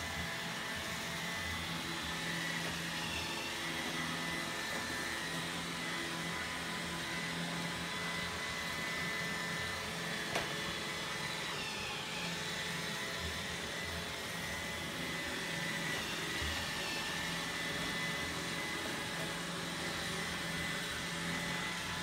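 Roomba robot vacuum running with a steady whirring hum, and one sharp click about ten seconds in.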